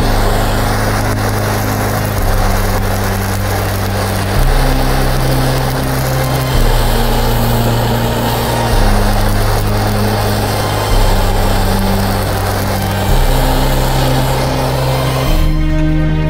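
Handheld gas blow torch flame hissing steadily as it burns a spilled egg, stopping shortly before the end. Slow background music with low held notes changing about every two seconds plays underneath.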